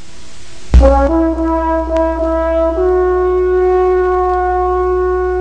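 Brass fanfare opening a song: a faint hiss, then a sudden loud hit with a deep bass note about a second in, a few quick rising notes, and one long held chord from about three seconds in.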